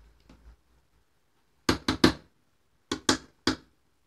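A metal spoon knocking sharply against the rim of a metal cooking pot: three quick knocks, then three more about a second later.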